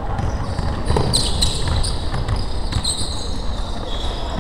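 Basketball being dribbled on a wooden gym floor, with several short, high-pitched squeaks of basketball shoes on the hardwood as players run, over the echoing room noise of the gym.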